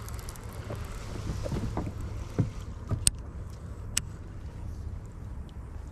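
A cast from a baitcasting rod and reel in a small plastic boat: soft knocks of handling, then two sharp clicks about three and four seconds in, over a steady low hum.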